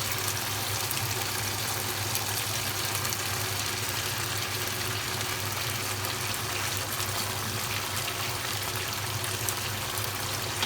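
Thickened mapo tofu sauce sizzling and bubbling in the pan over high heat, with homemade chili oil just added. It is a steady hiss that cuts off suddenly at the end.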